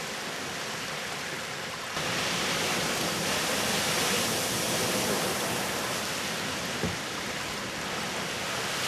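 Great Fountain Geyser erupting: a steady rushing hiss of water and steam. It grows suddenly louder about two seconds in, as a fresh burst of water shoots up.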